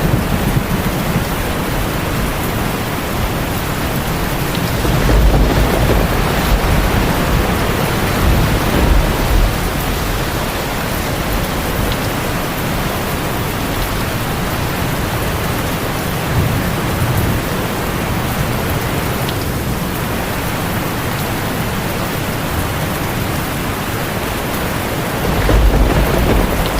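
Steady heavy rain with deep rolls of thunder rumbling underneath, swelling a little after five seconds in, again around nine seconds, and once more near the end.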